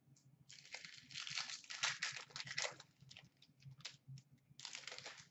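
A trading card pack wrapper being torn open and crinkled by hand. There is a long run of crackling in the first half, a few scattered crinkles, and another short burst near the end.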